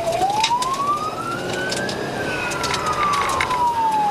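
Police car siren in a slow wail: the pitch rises over about two seconds, then slowly falls. Steady noise from the moving vehicle runs underneath, with scattered clicks.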